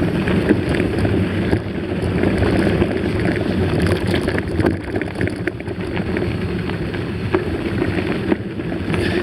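Wind buffeting the microphone of a camera riding on a moving mountain bike, with scattered clicks and rattles from the bike running over a rough trail.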